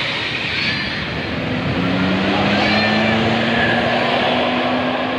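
Road traffic with a passing bus: an engine note comes in about two seconds in and rises slowly and steadily, over a steady rush of traffic noise.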